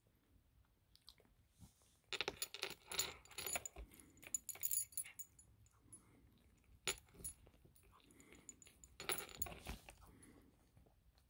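Maine Coon cat eating a piece of fried chicken: a few bursts of crunching and chewing at the breading, with its metal collar tag jingling as it moves its head.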